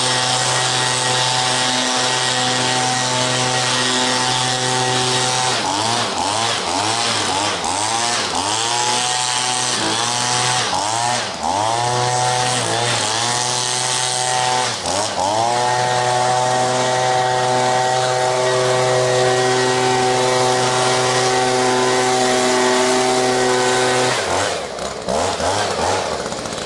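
Small handheld gas leaf blower running at high throttle while blowing leaves. Through the middle its engine pitch dips and recovers again and again as the throttle is let off and squeezed. It then holds steady until the throttle is let off near the end.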